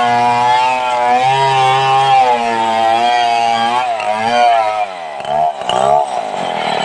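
Stihl 070 two-stroke chainsaw running near full throttle as it cuts into a log, its pitch wavering slightly with the load. About four seconds in, the pitch drops and swings up and down several times.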